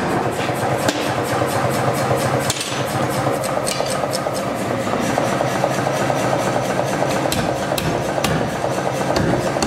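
Hammer strikes on a glowing steel bar at the anvil, heard as many quick sharp taps, over a steady mechanical hum.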